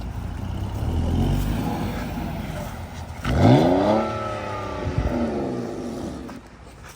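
BMW E46 engine pulling under load with a low rumble, then revving sharply upward about three seconds in and falling back, with a second, smaller rev about two seconds later as the car accelerates away, spinning its tires a little.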